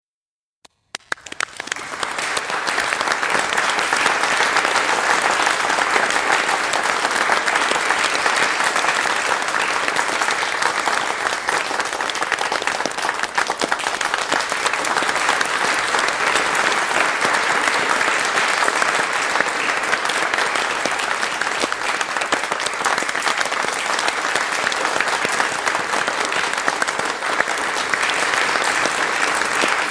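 Crowd applauding: a few scattered claps about a second in build quickly into steady, sustained applause from many hands.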